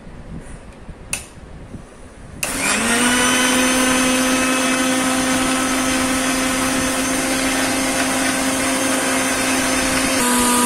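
Usha Smash mixer grinder starting up about two and a half seconds in and running loud and steady at one pitch as it blends a banana shake in its steel jar, with a single click just before. Its pitch shifts slightly near the end.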